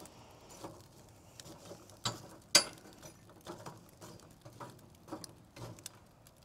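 Charcoal being stirred in a barrel cooker's metal charcoal basket: scattered light clinks and rattles of shifting charcoal, with two sharper knocks a little over two seconds in.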